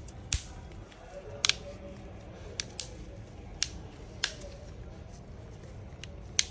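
Sharp plastic clicks and taps as a smartphone's back cover is pressed into place on the frame. There are about eight, spaced irregularly.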